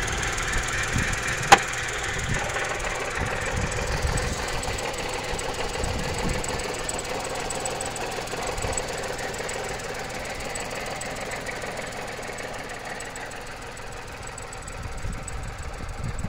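Skoda Fabia 1.2 HTP three-cylinder petrol engine idling steadily, heard close up in the open engine bay. There is one sharp click about a second and a half in.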